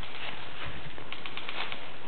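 Dry leaves rustling and crunching underfoot over a steady rushing noise on the camera microphone, with a quick run of sharp clicks in the second half.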